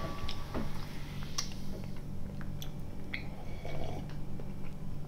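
Quiet chewing and small mouth clicks, then a swallow of drink from a glass about three and a half seconds in, over a steady low hum.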